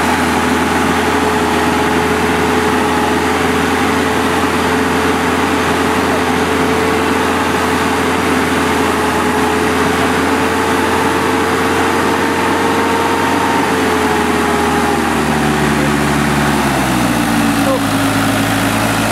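Small blue truck's engine running at steady, held revs while the truck is stuck in mud and being pushed; the engine pitch drops noticeably near the end as the revs come down.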